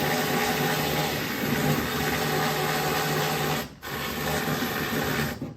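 A power tool running steadily with a loud hiss and an underlying hum. It cuts off sharply a little under four seconds in, runs again for about a second and a half, and stops near the end.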